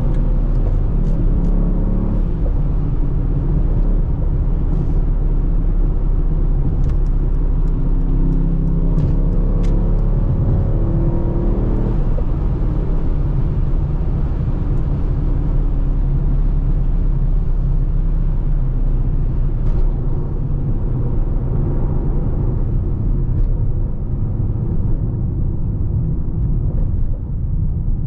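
Mercedes-AMG GT63 S's twin-turbo V8 running with steady low road rumble as the car drives along, the engine note climbing briefly about a third of the way in.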